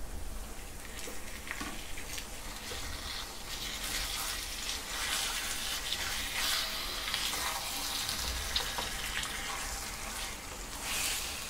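Raw minced meat sizzling in hot oil with fried onions in a steel kadhai, stirred and scraped with a wooden spatula. The sizzle grows a little louder a few seconds in.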